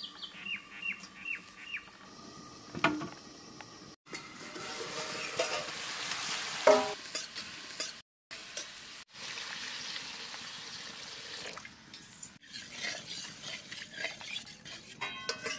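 Vegetables sizzling in a hot aluminium karahi over a wood fire while a metal spatula scrapes and taps the pan as they are stirred, with quick scraping strokes near the end.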